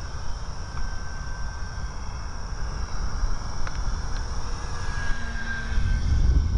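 Parkzone P-51D RC plane's brushless electric motor and propeller whining thinly in flight, a little louder as the plane passes close near the end, over a low rumble on the microphone.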